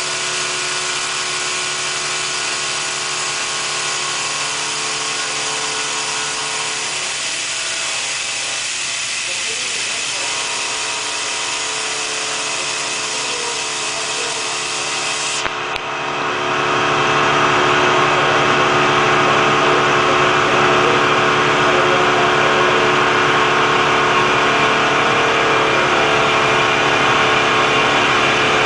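CNC milling machine running a 4-axis job on a screw, a steady machine sound made of many steady tones. About halfway through it breaks off with a click and comes back louder.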